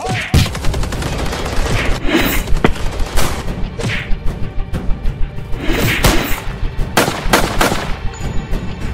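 Rapid gunfire sound effects: bursts of shots that start suddenly and go on throughout, mixed with background music.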